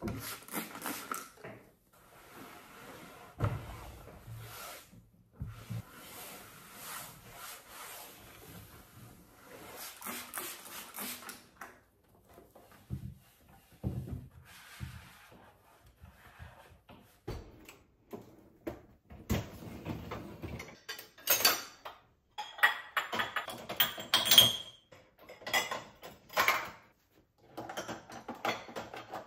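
Household cleaning sounds: a trigger spray bottle squirting and a cloth rubbing over a table, then crockery and cutlery clattering and clinking as they go into dishwasher racks, the clatter busiest in the second half.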